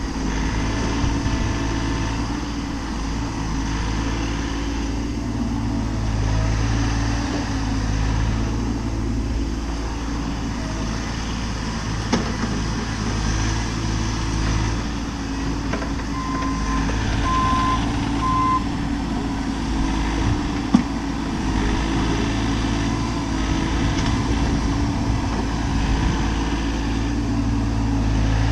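A Bobcat mini-excavator's diesel engine running steadily while working. A little past halfway there are three short electronic beeps, and a few brief knocks are heard along the way.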